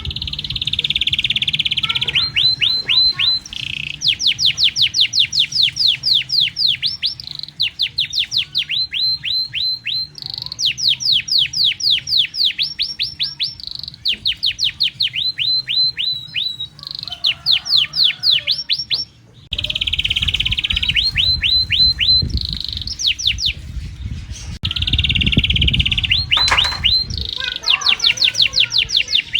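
Domestic canary singing: long rolling trills of rapid repeated notes, alternating with buzzy held tones. A low rumble runs underneath during the second half.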